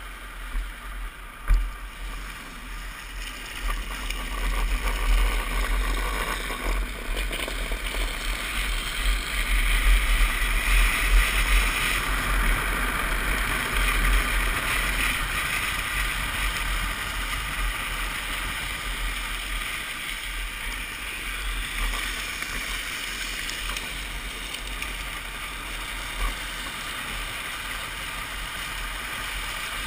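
Wind buffeting the microphone over the steady rolling and sliding of a drift trike's hard plastic rear wheels on asphalt during a fast downhill run, swelling louder about a third of the way through. A single sharp knock about a second and a half in.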